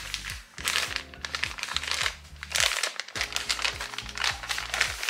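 Packaging crinkling and rustling in several short bursts as a package is handled and unwrapped, over steady background music.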